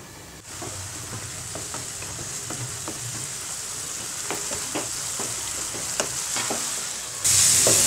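Chopped long beans sizzling in a nonstick frying pan as a wooden spatula stirs them, with light scraping clicks. The sizzling jumps suddenly louder near the end: the cooking water has boiled off and the beans are frying dry.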